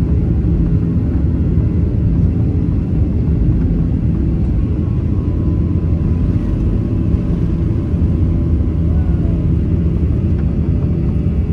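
Cabin sound over the wing of a Boeing 737-900ER rolling on the ground: a steady low rumble from its CFM56-7B26 engines and the wheels on the pavement, with a faint steady whine above it.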